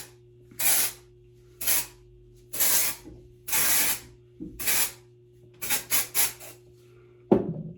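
Aerosol can of Batiste dry shampoo for dark hair sprayed in short hissing bursts, five about a second apart, then four quick short puffs. A sharp knock near the end is the loudest moment.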